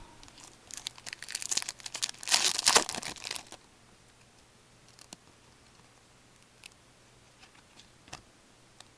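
Plastic wrapper of a hockey card pack crinkling and tearing as it is opened, for about three seconds, followed by a few faint clicks of the cards being handled.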